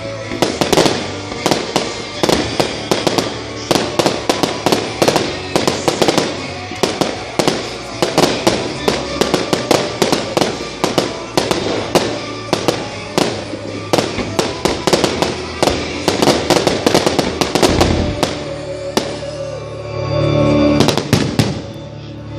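Fireworks barrage: a dense, continuous run of bangs and crackles, several reports a second, with music underneath. The shots thin out near the end.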